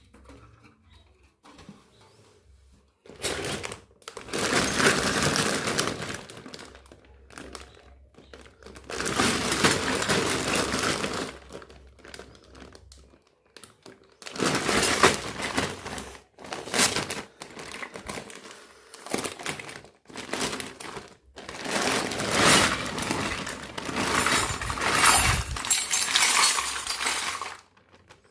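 Plastic packaging crinkling and rustling, and small toy kitchen pieces being handled, in several stretches of a few seconds with short pauses between.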